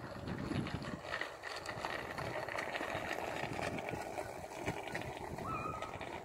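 Outdoor background noise with an uneven low rumble and no clear single event.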